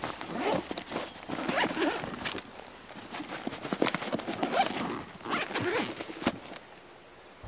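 Zipper on a soft insulated lunch-cooler bag being pulled open in several strokes.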